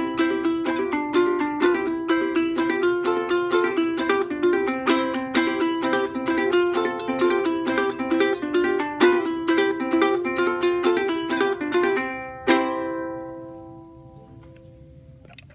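National Reso-Phonic resonator soprano ukulele played clawhammer style: a quick run of picked melody notes and brushed strums of an Appalachian fiddle tune. About twelve seconds in it ends on a final strummed chord that rings out and fades away.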